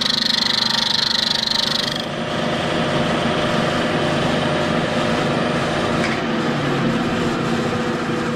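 Vertical milling machine's end mill facing the end of a welded metal bar, squaring it off. A high-pitched cutting whine lasts about two seconds, then drops away, and the spindle keeps running.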